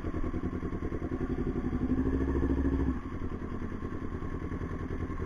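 Motorcycle engine idling with an even pulsing beat. From about one second in, a louder engine note rises slowly, then cuts off sharply about three seconds in.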